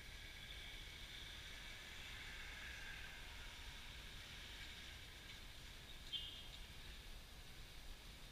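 Faint outdoor street ambience: a steady low rumble and hiss, with one short high chirp about six seconds in.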